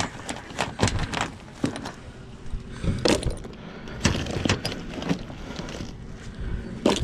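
Shotgun shells and metal cartridges rattling and clinking as they are handled and sifted with a gloved hand, in irregular clattering bursts.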